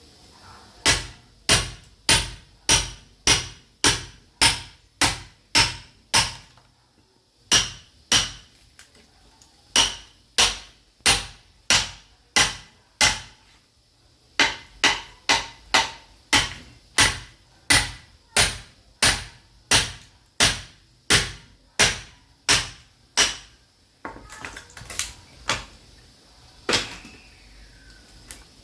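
Sledgehammer blows splitting firewood: sharp, evenly spaced strikes at about two a second, in runs of several seconds with short pauses between, then a few scattered, uneven blows near the end.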